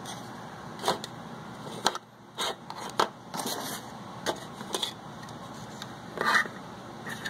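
Light clicks and knocks of a plastic model tank hull and parts being picked up and handled on a workbench cutting mat, a scattered series of short sharp taps with a slightly longer scrape or rustle near the end, over a steady background noise.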